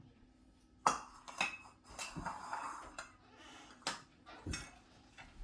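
Kitchen utensils and dishes clinking and knocking, about half a dozen sharp clinks spread over the few seconds, with a brief scraping rustle in the middle.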